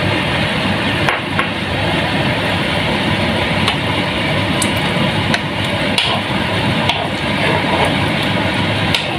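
A utensil stirring vegetables in coconut-milk broth in a pot, with irregular light knocks of the utensil against the pot, over a steady background rush.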